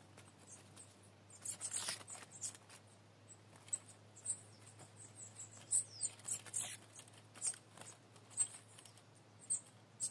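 Small songbirds at a trap cage, squeaking and chirping in short, high-pitched bursts at irregular intervals, with a falling call about six and a half seconds in: a wild bird scuffling with the caged decoy bird through the mesh.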